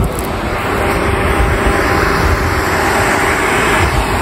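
Wind buffeting the microphone: a loud, rough, uneven rumble with a hiss over it and a faint steady hum underneath.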